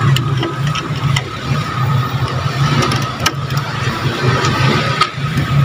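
An engine idling steadily with a low, even rumble, and a couple of faint clicks as a radiator cap is twisted shut.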